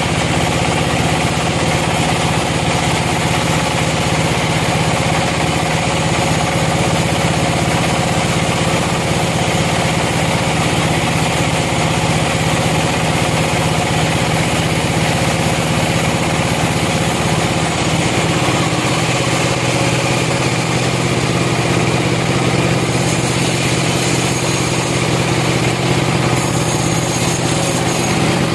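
Sawmill machinery running, a steady engine-like drone with a strong low hum that shifts slightly about two-thirds of the way through.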